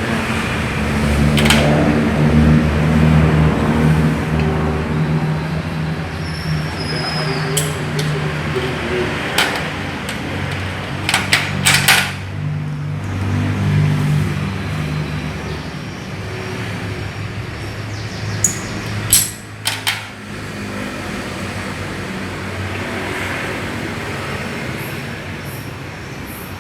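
An engine running steadily, with a few sharp knocks at irregular intervals.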